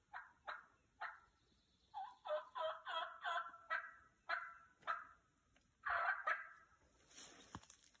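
Turkey yelps: a string of short calls about half a second apart that quicken into a faster run in the middle, then slow again. Near the end there is a short rustle with one sharp click.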